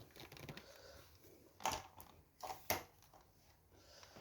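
A few short, faint plastic clicks and knocks from a stick vacuum being handled, three of them close together in the middle.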